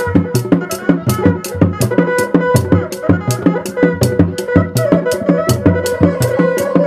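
Sundanese reak ensemble music played live: dogdog drums beat an interlocking low rhythm under sharp high strokes at about four a second, while a reedy melody instrument holds long tones above them.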